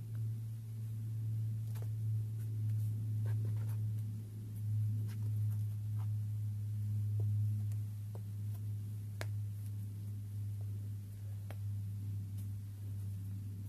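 A steady low hum with scattered short clicks and scuffs from a climber's shoes and hands on sandstone holds as he climbs and tops out a boulder.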